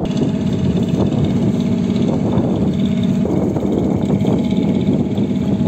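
Boat engine running steadily on the river, a constant low hum, with wind buffeting the microphone.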